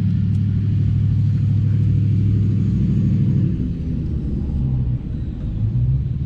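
A steady, loud low rumble like a running engine, its pitch shifting slightly about three and a half seconds in.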